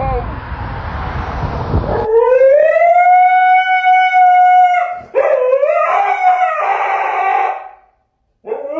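Dog howling: a rushing noise for the first two seconds, then one long howl that rises and holds steady, followed by a second, wavering howl, and a new howl starting near the end.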